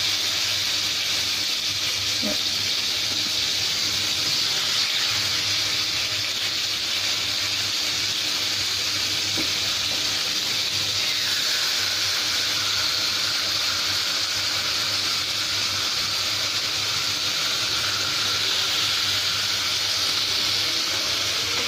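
Marinated chicken slices sizzling steadily in ghee on a hot tawa.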